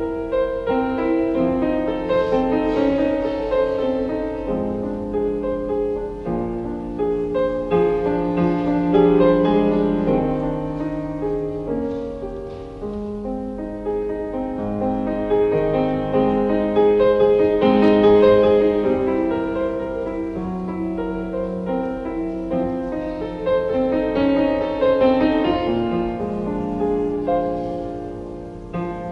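Slow, meditative keyboard music of overlapping held notes and chords.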